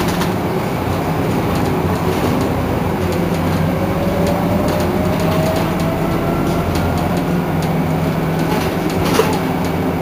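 Iveco Crealis bus running with a steady low drone. A faint whine rises in pitch from about three to six seconds in, and there is a single sharp click near the end.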